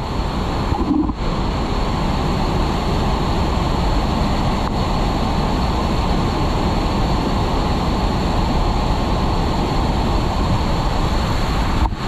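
Steady roar of a large waterfall in full flow, with its rocky stream rushing below it: a constant low rumble of falling water.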